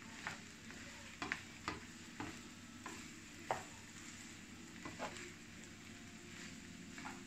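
A spatula stirring and turning rice with shrimp in a frying pan, with soft scrapes and knocks against the pan at irregular moments over a faint steady sizzle.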